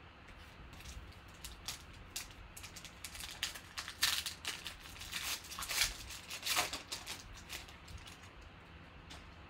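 A foil trading-card pack of 2018 Panini Select Football being torn open and crinkled by hand, with light clicks of cards being handled. The crinkling rasps come in a loud run from about three and a half to seven seconds in.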